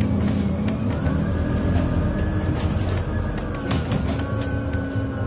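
Inside a Scania CityWide 12 LF CNG city bus under way: its compressed-natural-gas engine running steadily with a low hum, and scattered short clicks and rattles from the cabin.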